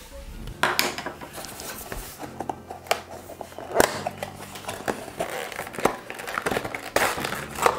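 Thin cardboard CPU retail box being opened by hand: the flaps and sleeve rustle, scrape and click irregularly as the inner box is slid out.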